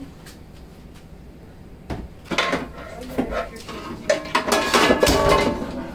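Metal pots and pans clattering and clanking as they are pulled from a kitchen shelf. The clatter starts about two seconds in, with short ringing after some knocks, and gets busier towards the end.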